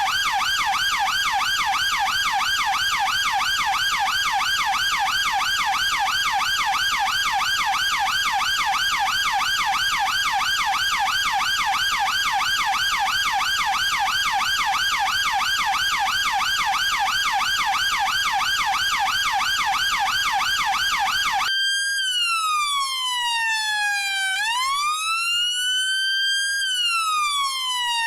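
UK police car siren on a fast yelp, its pitch warbling up and down about six times a second. About three-quarters of the way through it switches abruptly to a slow wail, gliding down and back up over a few seconds at a time.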